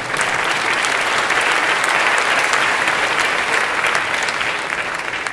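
Audience applauding: many hands clapping together, swelling at the start and tapering off near the end.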